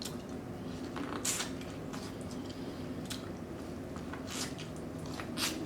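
A person chewing and eating food close to the microphone, with a handful of short, wet smacking clicks over a faint steady hum.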